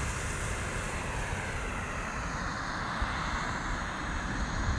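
Steady surf of waves breaking on a sandy beach: an even, continuous rushing with no single wave standing out.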